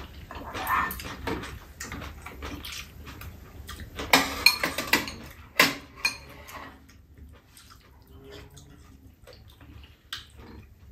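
Spoons and chopsticks clinking and scraping against ceramic bowls while eating, in scattered sharp taps, the loudest few about four to six seconds in, fainter after that.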